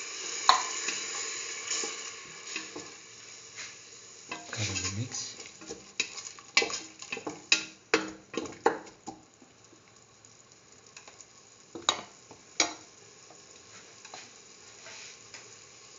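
Sizzling hiss of water boiling off in a hot pan of oil, onion and tomato, fading over the first few seconds. A spatula then stirs and taps against the pan in a quick run of sharp knocks between about four and nine seconds in, and twice more near twelve seconds.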